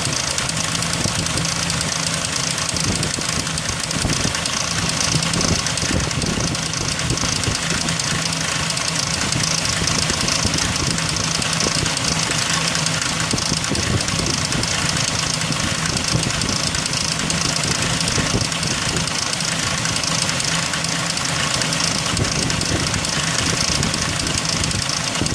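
2003 Ford Ranger's 4.0-litre V6 idling steadily with a continuous fast, even ticking over the engine note: the timing chain noise the owner is showing.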